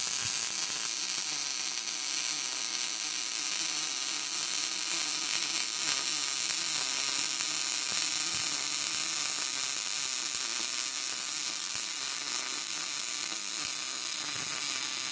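MIG welding arc laying a bead on steel plate: a steady crackling hiss that stops abruptly at the end when the torch trigger is released.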